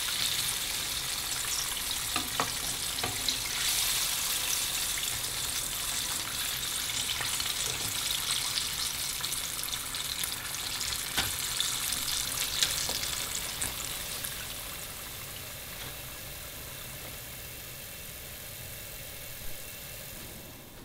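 Battered chicken pieces deep-frying in hot oil: a steady sizzle with occasional sharp crackles and pops, slowly fading out toward the end.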